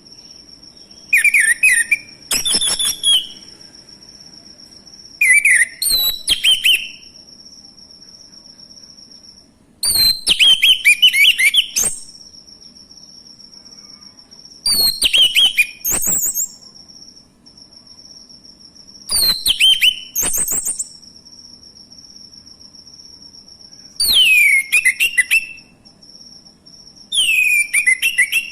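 Male orange-headed thrush singing: loud, short, varied whistled phrases with quick pitch sweeps, repeated seven times, about one every four to five seconds. A steady high insect whine runs underneath.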